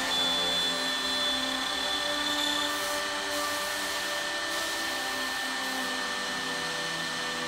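Spindle motor of a dovetail-cutting router machine running with a steady high whine and rushing noise as its bit cuts dovetails in a wooden board. The highest tone drops out a little under three seconds in.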